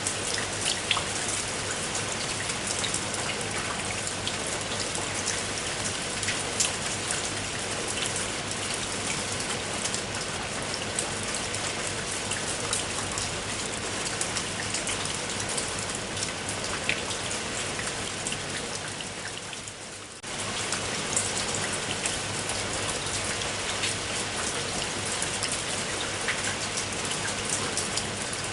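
Steady rain with many individual drops ticking sharply on a hard surface. About twenty seconds in it fades briefly, then comes back suddenly at full level.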